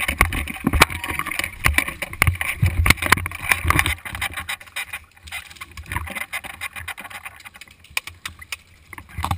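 Irregular knocks, scuffs and rattles from an action camera mounted on an airsoft rifle being jostled as the rifle is carried and moved about, busiest in the first four seconds and thinning out after.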